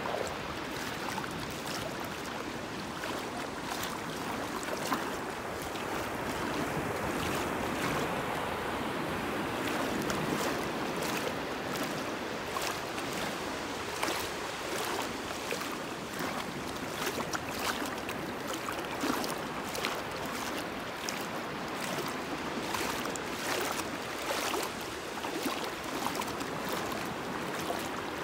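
Shallow seawater sloshing and lapping close by, with many small sharp splashes from about ten seconds in, over the steady hiss of distant surf.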